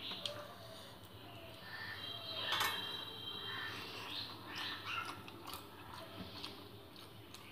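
Crows cawing repeatedly in the background, with thin clicks of fingers working rice on a steel plate and one louder ringing clink on the plate about two and a half seconds in.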